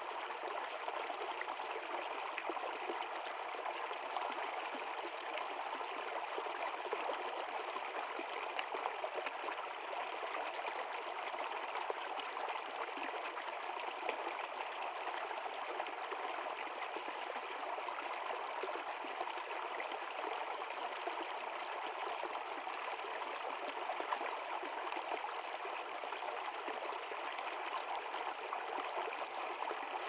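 Small stream flowing and splashing steadily over a low cascade.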